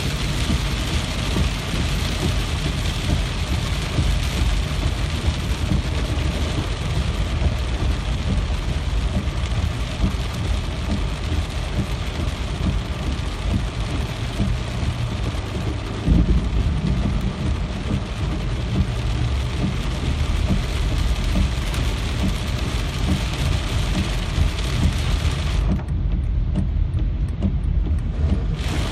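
Steady rain with a deep, continuous low rumble beneath it, and a brief louder low thump about halfway through. Near the end the hiss of the rain dulls for a few seconds, leaving mostly the rumble, then returns.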